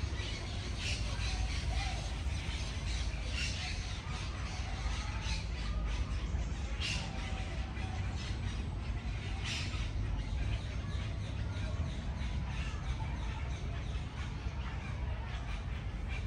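Outdoor park ambience: birds calling in short, scattered chirps over a steady low rumble.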